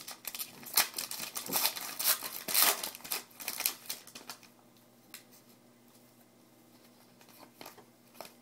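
Trading cards and pack wrapper being handled, with crinkling rustles and soft flicking clicks of cards for the first few seconds, then only occasional faint clicks.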